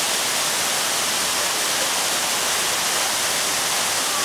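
Man-made rock waterfall pouring into the churning channel of a river rapids ride: a steady rush of falling water.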